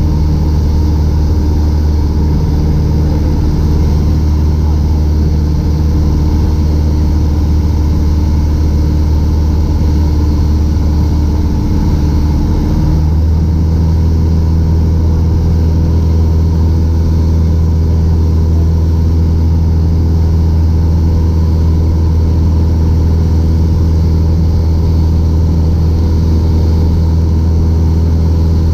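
Piper PA-28's piston engine and propeller droning steadily in cruise, heard from inside the cockpit. The engine note shifts slightly about halfway through.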